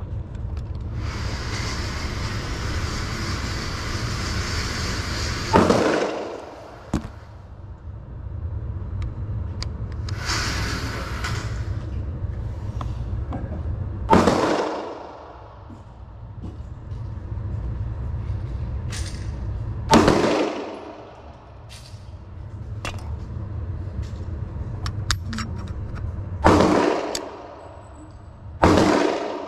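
About five sharp, muffled bangs several seconds apart, each ringing out for about a second: gunshots on a shooting range. Under them runs a steady low rumble.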